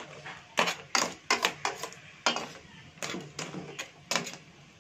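A spatula knocking and scraping against a stainless-steel wok as crabs in coconut milk are stirred: a run of irregular clinks and clatters that stops near the end.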